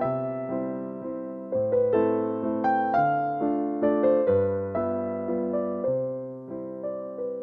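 Background music: slow piano melody of single struck notes over low chords.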